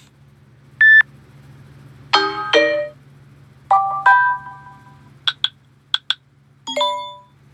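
Samsung Galaxy Note8 notification tones played one after another: about six short electronic chimes and blips, each a different tone, some with two notes and a short ringing tail, with short gaps between them.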